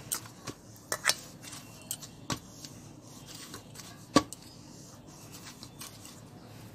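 Maida dough being kneaded by hand in a stainless-steel bowl, with irregular sharp knocks and clicks against the bowl, the loudest about four seconds in.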